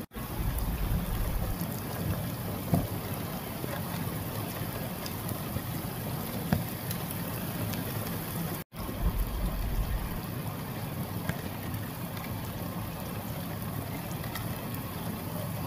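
Heavy rain pouring steadily, with low rumbling gusts a second in and again just after a brief dropout a little past halfway.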